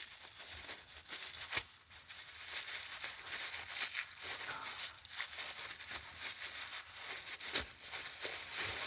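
Packaging crinkling and tearing as a tightly packed parcel is worked open by hand, with a few sharp clicks.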